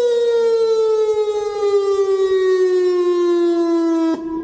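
Whelen WPS electronic outdoor warning siren sounding a brief test: one loud, steady wail with many overtones, sliding slowly down in pitch. It cuts off sharply about four seconds in, leaving a fainter tone at the same pitch.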